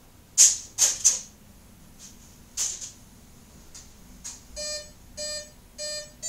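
Radio-control transmitter beeping three short times about half a second apart as its switches are flipped, with a longer beep starting right at the end. Before the beeps come a few short, loud hissing noises in the first three seconds.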